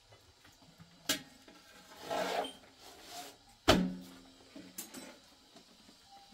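Long thin wooden rolling pin knocking on the bread board and griddle while flatbread is rolled and turned. Two sharp knocks about two and a half seconds apart, the second louder with a brief low ring, and a short rubbing sweep between them.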